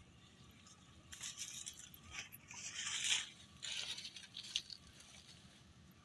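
Irregular rustling and crackling, high and hissy, starting about a second in, loudest about three seconds in, and dying away at about four and a half seconds, with a few sharp clicks.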